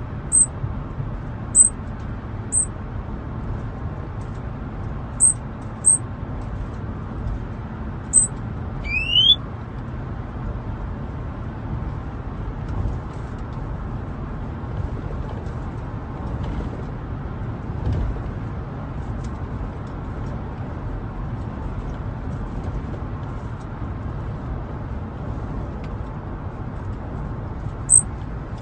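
Caged songbird giving short, high chip notes, about six in the first eight seconds and one near the end, and one rising whistle about nine seconds in, over the steady road rumble inside a moving car.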